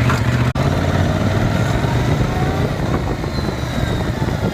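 Yamaha MT-07 motorcycle running, its parallel-twin engine humming steadily, with the drive chain after the dealer's fix for its loose-sounding chain noise. The sound cuts out for an instant about half a second in.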